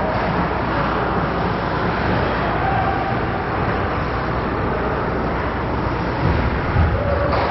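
Steady wash of ice-rink noise during a hockey game, with two dull thumps near the end.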